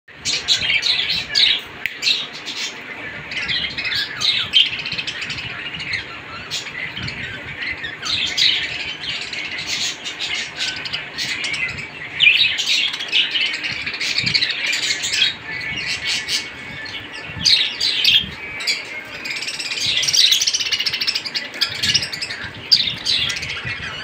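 A cage full of budgerigars chirping and chattering, many birds calling over one another without a break.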